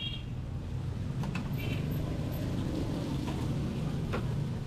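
Steady low rumble of a busy street-food kitchen, with a few sharp clicks and two short high chirps.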